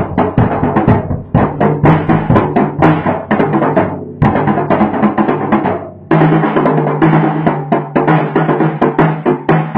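Drum kit played with light-up drumsticks in a fast run of hits, over music with a steady low bass note. The playing drops away briefly twice, just after four seconds and again about six seconds in.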